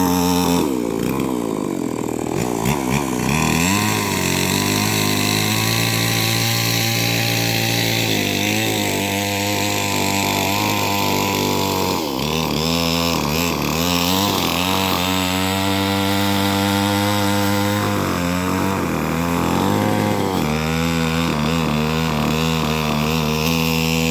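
Chainsaw running hard while cutting into a rubber tree, its engine pitch dipping and recovering a few times as the chain loads up in the cut.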